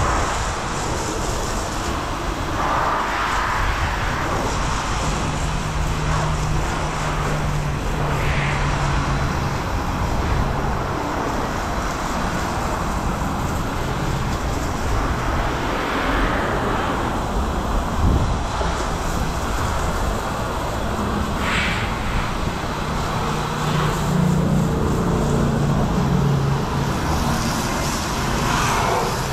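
Self-serve car wash foam brush spraying coloured foam onto a truck's paint: a steady, loud hiss of pressurised foam and water, with a faint low hum that comes and goes.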